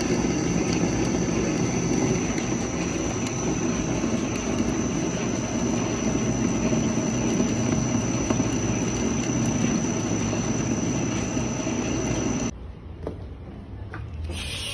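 Metal lathe running with a single-point threading tool cutting a coarse thread into a steel bar, a steady machine noise with a thin high whine. About twelve and a half seconds in it cuts off abruptly to a much quieter background with a few faint clicks.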